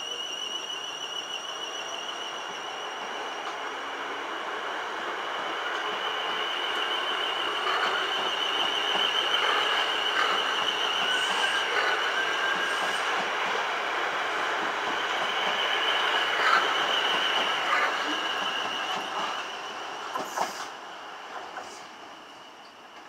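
South West Trains Class 450 Desiro electric multiple unit running over the pointwork at the station throat, a steady rumble that swells and then fades. A high, wavering squeal runs over it throughout, and a few sharp clicks of wheels over rail joints come near the end.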